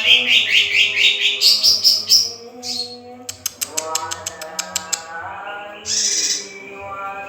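Young male greater green leafbird (cucak ijo) singing: a fast chattering run of high notes, then after a short pause a rapid series of dry clicking notes, and a short harsh burst near the end.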